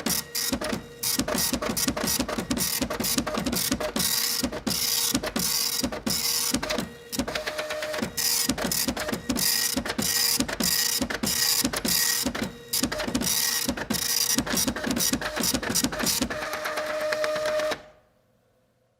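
A printer printing: rapid, uneven clicking and rattling over a steady whine, with a few brief lulls. It stops about a second before the end.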